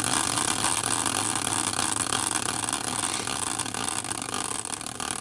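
Caster wheel in a steel bracket, used as a prize wheel, spinning freely on its axle after a hand spin. It makes a steady whirring rattle that slowly grows quieter as the wheel loses speed.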